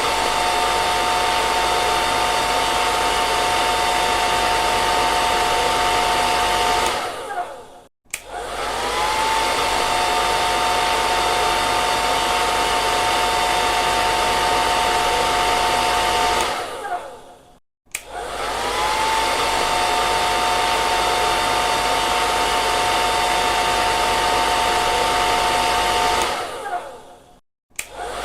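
Hair dryer blowing with a steady rushing sound and a motor whine. It cuts out and starts again about every ten seconds. Each time it winds down, goes briefly silent, then comes back with a short rising whine.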